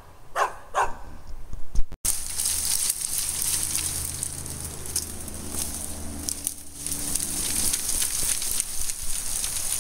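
A dog barks twice. Then, after a break, comes a steady rustling and crackling of dry vines and brush being shaken by hand to make a squirrel move.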